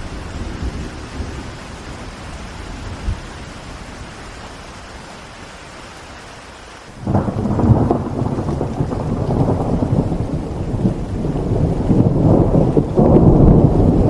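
Steady rain hiss, then about halfway through a sudden clap of thunder breaks into a deep rolling rumble that grows louder toward the end.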